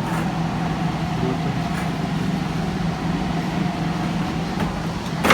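Steady low hum and running noise of a vehicle in motion, with a short sharp knock right at the end.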